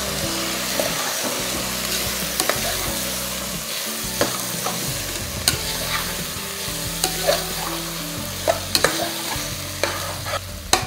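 Soaked rice sizzling as it is stirred and fried in a stainless steel pot, the spatula scraping and clicking against the pot about eight times.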